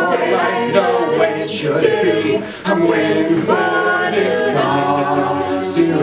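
Mixed a cappella group singing: a male soloist over male and female backing voices holding chords, with a short break about two and a half seconds in before new sustained chords come in.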